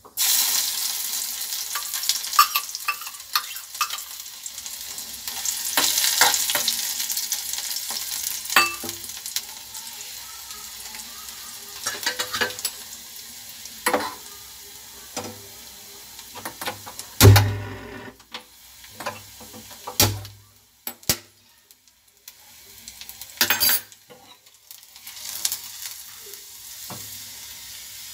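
Chopped garlic and cumin seeds sizzling in hot oil in a small nonstick pan, the tempering (tadka) for lassi, stirred with a spoon. The sizzle is strongest at first and then settles lower, with scattered clicks and a few sharp knocks, the loudest about two-thirds of the way through.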